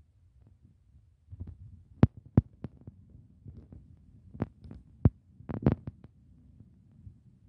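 Soldiers' boots stamping on a hard floor in ceremonial drill step: a handful of sharp thumps at uneven spacing, the loudest two about two seconds in, over a low steady hum.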